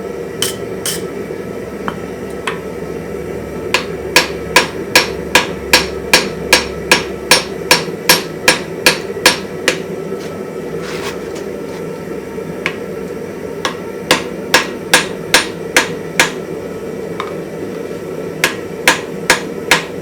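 Blacksmith's hammer striking hot iron in three runs of even, ringing blows, about two and a half a second, with short pauses between runs. The blows are forge-welding the faceplate onto the body of a post anvil, consolidating the weld at welding heat.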